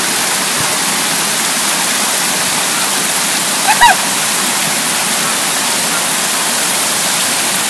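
Water spilling steadily over a low stone weir into a pool below, a constant rushing. A brief voice-like cry breaks in about four seconds in.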